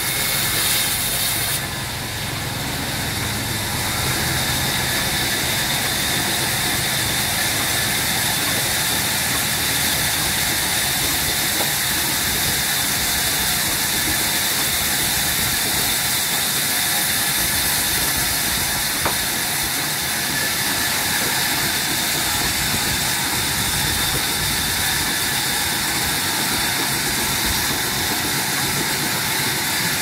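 Large sawmill band saw running and ripping jackfruit-wood planks: a steady, loud hissing noise with a thin high whine over it, dipping briefly about two seconds in.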